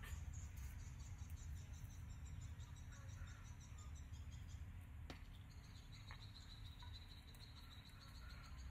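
Insects trilling: a fast, pulsing high chirping that gives way about five seconds in to a steady high trill, over a faint low rumble. One sharp tick about five seconds in.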